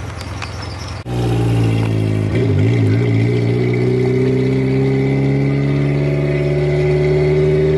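K20A2-swapped Honda Civic EK sedan's four-cylinder engine pulling under acceleration; it starts abruptly about a second in, wavers briefly, then rises steadily in pitch for several seconds.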